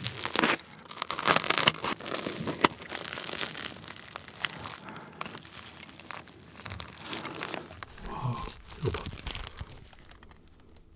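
Deep-fried, breadcrumb-coated cheese hot dog being pulled apart by hand, its crisp crust crackling and tearing in a dense run of crunchy crackles that thins out near the end.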